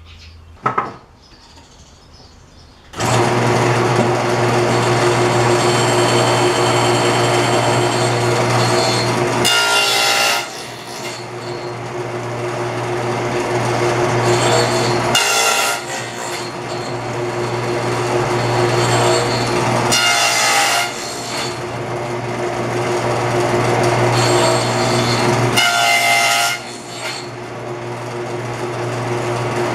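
Table saw with a dado blade switching on about three seconds in and running steadily. Four times, about five seconds apart, the tone changes briefly as the blade cuts a finger-joint slot in the board.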